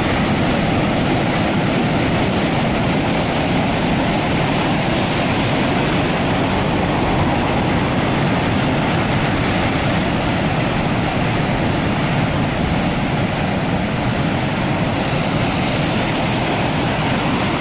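Heavy surf breaking continuously on a rocky shore: a steady rushing noise of waves and foam with no pauses.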